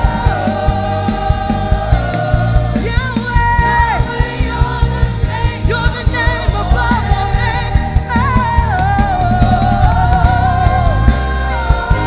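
Live gospel worship song: a group of singers sings a wavering "oh oh oh oh" melody together, backed by a band with heavy bass and a steady beat.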